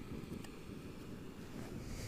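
Wind buffeting the microphone: a steady, low rumbling noise, with a few faint clicks.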